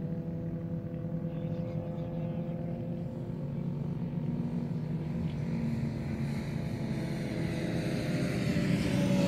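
Motorcycle engines running on a race track: a steady engine sound that grows louder over the last few seconds.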